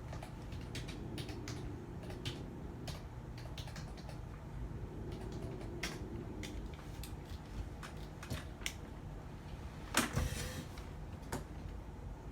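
Scattered light clicks and taps over a low steady hum, with one louder knock and rustle about ten seconds in.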